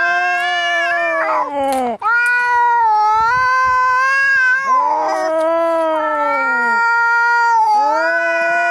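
Cats yowling in an angry fight: long, wavering caterwauls with barely a pause between them, broken briefly about two seconds in.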